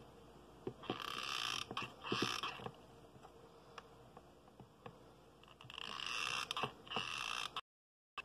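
Hot glue gun trigger squeezed in four short bursts, in two pairs, with small clicks of tumbled crystals being picked up and set down. The sound cuts out suddenly near the end.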